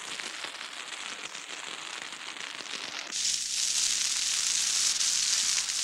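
Crackling and popping of a ground fire burning through grass and fallen pine needles in a longleaf pine forest. About three seconds in it grows louder, with a brighter steady hiss as bigger flames take hold.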